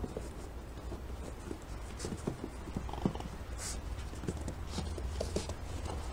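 Raccoons purring and cooing to one another: a run of short, irregular churring chirps and clicks, over a steady low hum.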